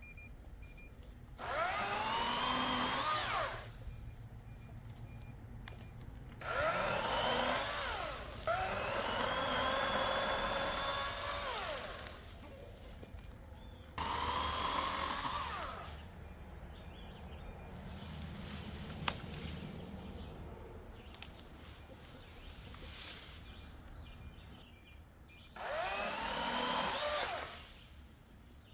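Kobalt battery-powered electric chainsaw cutting through tree logs in about six bursts of a few seconds each, its motor whine shifting in pitch as the chain loads and frees.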